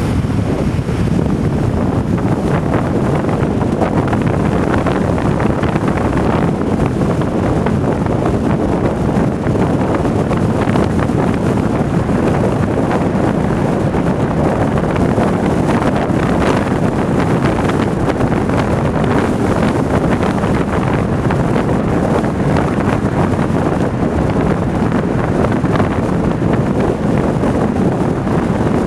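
Wind rushing past the open window of a moving car and buffeting the microphone: a loud, steady rushing that does not let up.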